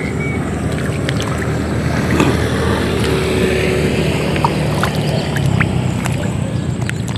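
A motor running steadily, with a few faint clicks over it.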